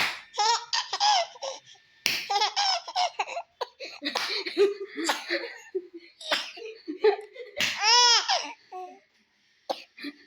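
A young child laughing hard in repeated bursts, broken by short harsh coughs, with one long squealing laugh that rises and falls about eight seconds in.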